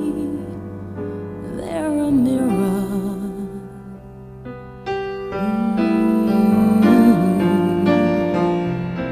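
Slow ballad music: electric piano chords under a melody line with vibrato. It dips around the middle and swells up again about five seconds in.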